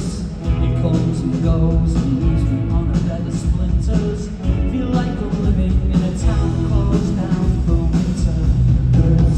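Live pop-rock band playing at full volume, with singing over guitars, bass and drums.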